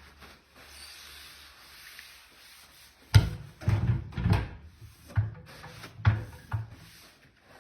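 Steady rubbing, then from about three seconds in a series of about seven heavy knocks and scrapes, the sounds of handling the parts of a wood-burning fireplace insert during cleaning.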